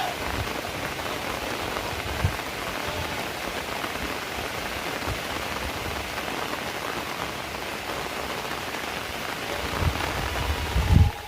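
Heavy rain falling steadily: an even hiss of raindrops on surfaces. There are a few brief low thumps, and a louder low rumble near the end.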